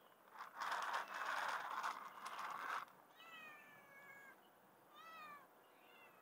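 A loud scratchy noise for the first few seconds, then a cat meowing: one long call that falls slightly in pitch, and a shorter one about two seconds later.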